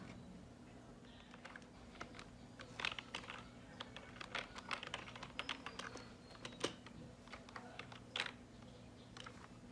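Light, irregular clicks and taps of small hard parts or tools being handled, thickest in the middle, over a steady low electrical hum.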